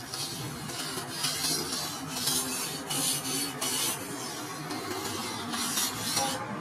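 Steel knife blade being sharpened by hand on a whetstone: a series of uneven scraping strokes of the blade across the stone.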